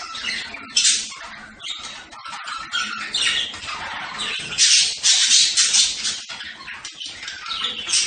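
Budgerigars chattering, a dense stream of chirps, warbles and squawks, with louder bursts of calls about a second in and again around the middle.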